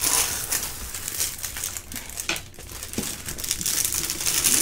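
Clear plastic cover film on a diamond painting canvas crinkling and rustling under hands that spread and press it flat. It is loudest at the start and again near the end, with a lull in the middle.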